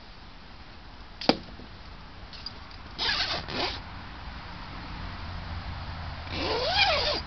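Handling noise: a sharp click, then short bursts of rustling, and near the end a louder rustle with a brief squeak that rises and falls in pitch, over a low steady hum.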